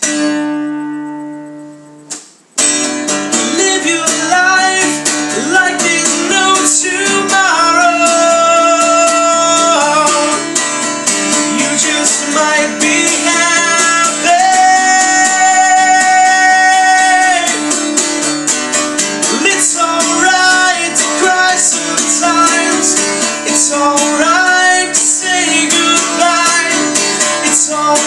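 Acoustic guitar song with a man singing: a chord rings and fades for about two seconds, then the strumming and singing come back in loudly about two and a half seconds in, with several long held notes.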